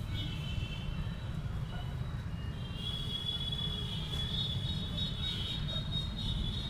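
Outdoor ambience: a steady low rumble with a high, wavering chirring on top, growing stronger about halfway through.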